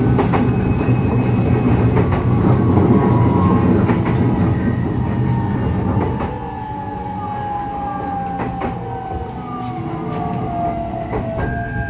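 E129 series electric train running: wheels clicking over rail joints with a heavy rumble for the first half, then a quieter stretch in which the Toyo IGBT inverter and traction-motor whine falls steadily in pitch as the train slows. A higher steady tone starts near the end.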